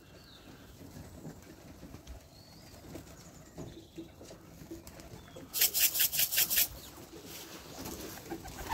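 Pigeons flying overhead, with a loud quick run of about eight wing flaps over about a second, about halfway through, as a pigeon beats its wings close by.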